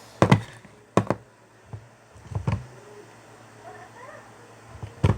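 Sticky homemade glue slime being pressed and pulled by hand, giving four short, sharp pops: air pockets bursting in the slime, with faint crackles between.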